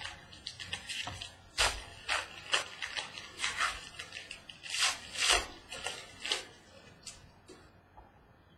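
Hands opening a box of trading cards: irregular rustling and crinkling of the packaging and cards, with a few louder crackles, thinning out near the end.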